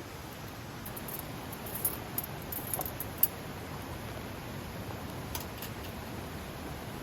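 Several short, sharp light clicks, bunched together about two to three seconds in with the loudest at the end of the bunch, and a few more later, over steady low background noise.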